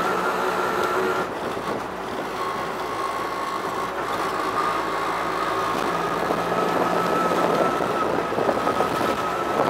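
Auto-rickshaw engine running steadily as the tuk-tuk drives along, heard from inside the passenger cabin with road noise and rattle. The engine note dips about a second in, then climbs back gradually.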